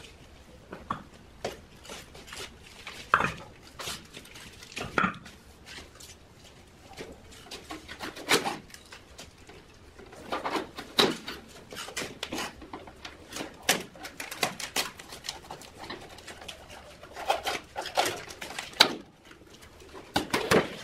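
Irregular knocks, clinks and scrapes as bricks are set down and a metal trowel pries a thin sheet-metal mould away from a freshly cast cement planter.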